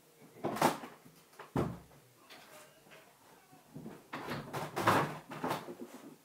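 A door being opened and closed: a low thud about a second and a half in, with a busier run of knocks and rustles from about four seconds in.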